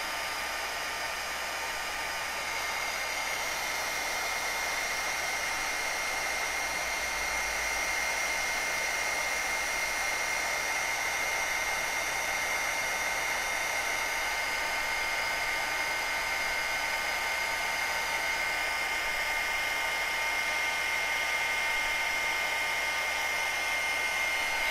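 Handheld craft heat tool blowing steadily, a fan hiss with a high whine, as it dries wet paint and ink on a paper tag; it switches off right at the end.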